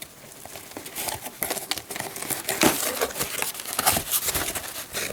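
Cutter knife slicing through the packing tape and cardboard of a shipping box, with crinkling and scraping as the box is worked open: an irregular run of short scratches and clicks.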